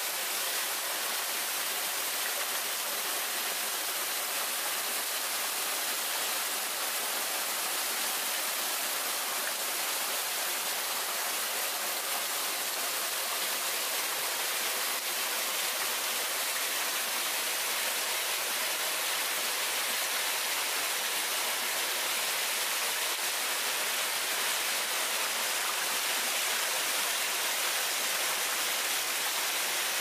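Shiraito Falls: many thin threads of water spilling from a mossy rock face and splashing below, making a steady, even hiss that is brightest in the upper range.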